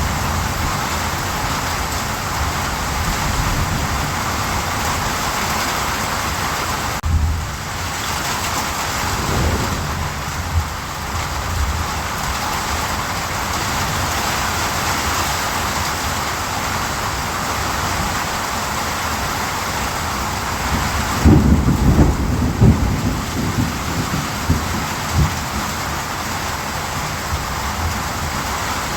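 Steady rain falling, with low rumbles of thunder, the strongest about two-thirds of the way through.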